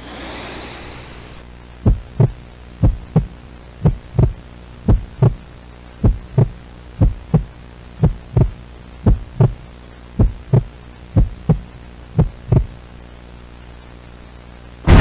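Heartbeat sound effect: about eleven double thumps, roughly one a second, over a low steady hum. The beats stop a couple of seconds before the end, and a loud blast breaks in at the very end.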